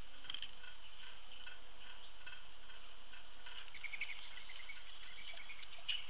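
Outdoor birdsong around a backyard feeder: a steady high-pitched hum with quiet chirps repeating evenly underneath, and a short burst of several bird calls about four seconds in, with one more call just before the end.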